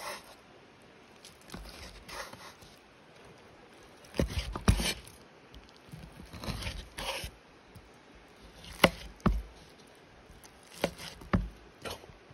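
Cleaver chopping through a rack of smoked ribs onto a wooden cutting board: a series of sharp knocks, several in pairs about half a second apart, with softer scraping of the blade through the meat between them.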